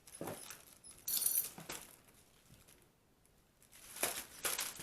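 Light scuffling and pattering of a baby monkey moving about on a tabletop, in a few short bursts.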